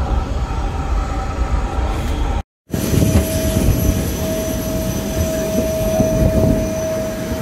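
A vehicle engine hums steadily, heard from inside its cabin. After a sudden cut about two and a half seconds in, a parked Airbus A350-1000 gives a steady high whine over a low rumble.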